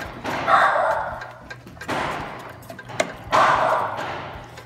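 A wooden spoon stirring a thick mix of crushed paçoca and condensed milk in a stainless steel pot. There are two scraping swishes of about a second each, one near the start and one past the middle. Between them come a few sharp knocks of the spoon against the pot.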